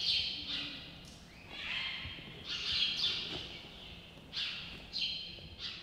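Small birds chirping: short, high twittering phrases repeating every second or two.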